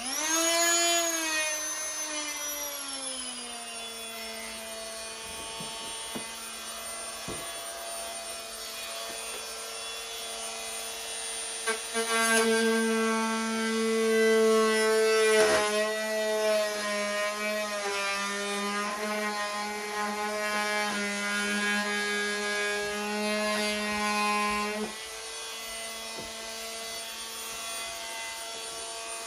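Corded oscillating multi-tool switched on, its buzzing hum starting higher and settling lower over the first few seconds. From about twelve seconds in it gets louder and rougher as the blade cuts into a clear plastic storage drawer, with one sharp knock midway. It eases again a few seconds before the end.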